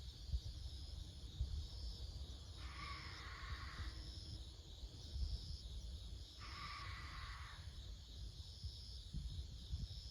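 Ural owl giving two harsh, hoarse screeching calls, each a little over a second long and about four seconds apart: the rasping "gyaa" call heard before dawn in autumn. Insects chirp steadily and rhythmically beneath it.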